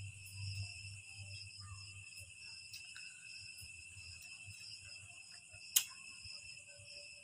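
Steady, unbroken chorus of night insects such as crickets chirring in several high bands, with faint small clicks of eating at the table and one sharp click about six seconds in.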